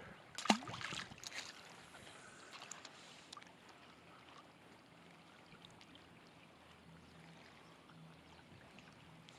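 A small splash about half a second in as a released bluegill drops back into the lake, followed by a few light clicks and faint water lapping at the bank.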